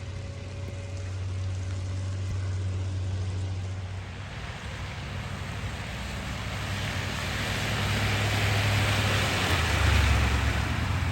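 Road traffic on a snowy street: a steady low engine hum, with a rushing tyre noise that swells for a few seconds and then eases as a vehicle passes.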